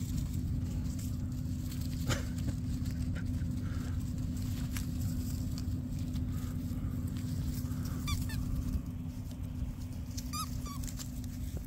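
Puppies giving short, high squeaky yips in two quick runs, one about eight seconds in and another near the end, over a steady low rumble.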